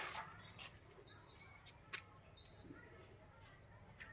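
Near silence: faint outdoor ambience with a few faint bird chirps and a single soft click about two seconds in.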